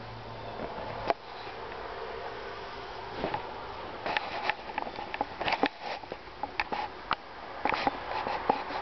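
Eureka 500 series canister vacuum running with a steady drone. There is a sharp click about a second in, and from about four seconds on, irregular quick ticks and rattles of oatmeal being sucked up. The motor has a sound that the owner takes for bearings needing oil or grease.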